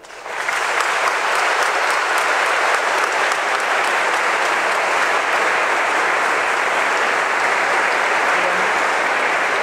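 Audience applauding: many hands clapping together, swelling up right at the start and then holding steady.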